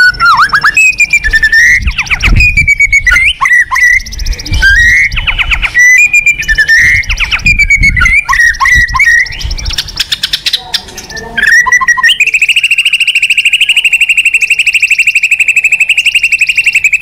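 White-rumped shama singing loudly: a run of varied whistled phrases with sliding notes and sharp clicks, then about twelve seconds in, a long, even, rapid trill held to the end.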